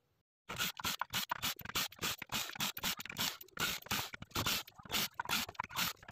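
Quick, irregular scraping clicks, several a second, starting about half a second in: a screwdriver working the screws that hold a car amplifier's mainboard to its metal chassis.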